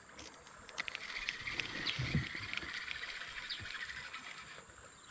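Faint outdoor ambience with many short, scattered high chirps from small wildlife.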